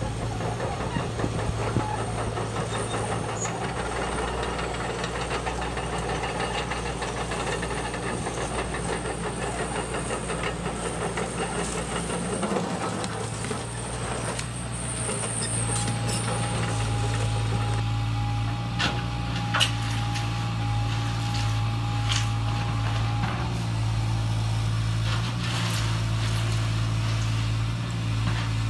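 Radio-controlled Huina 1580 metal excavator driving on its tracks: small electric motors whirring over a steady low hum, with a few sharp clicks of metal track and ramp in the second half.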